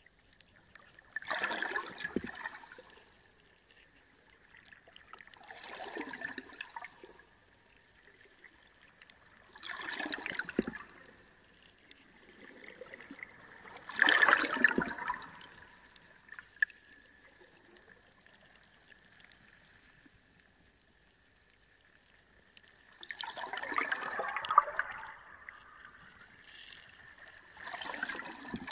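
Reef aquarium water gurgling and splashing in surges about every four seconds, with a longer lull midway. A faint steady high whine runs underneath.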